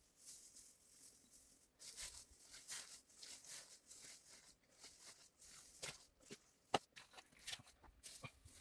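Scattered rustling and crackling with small irregular clicks, and one sharp click about seven seconds in.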